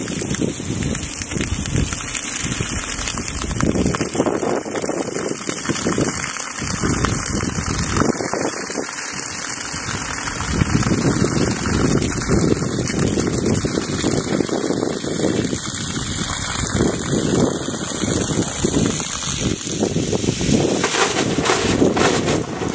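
Water rushing and splashing out of the outlet pipe of a compressed-air borewell pump, a continuous noisy rush that surges unevenly.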